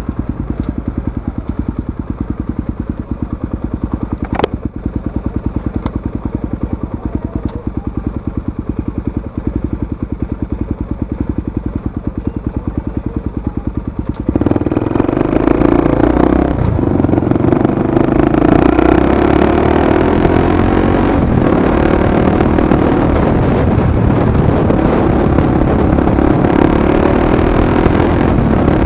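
Honda XR250 Tornado's single-cylinder four-stroke engine idling with an even pulse through its aftermarket exhaust. About halfway through it revs up as the bike pulls away, then runs louder under way.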